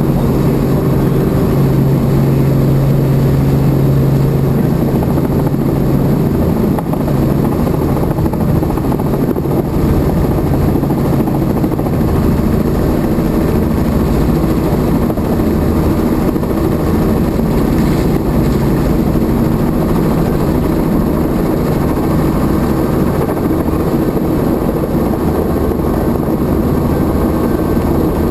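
Helicopter in flight: the steady, loud drone of rotor and engine.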